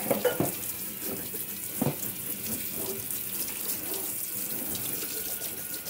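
Pull-down kitchen faucet running steadily, its stream splashing over a puppy's fur into a stainless steel sink, with a few short knocks near the start and about two seconds in.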